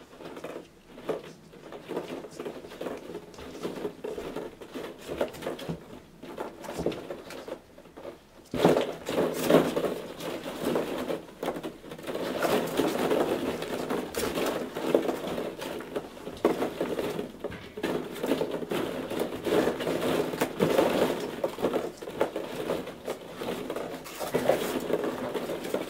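Hollow plastic ball-pit balls clattering and rustling against each other and the plastic tub as Havanese puppies tumble and burrow through them, a busy run of small clicks that grows louder about a third of the way in.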